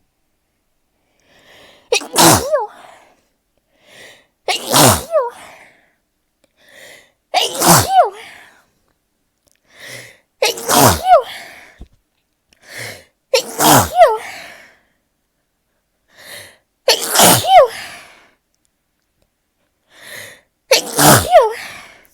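A person in a sneezing fit, sneezing seven times about every three seconds. Each sneeze is preceded by a short catching in-breath.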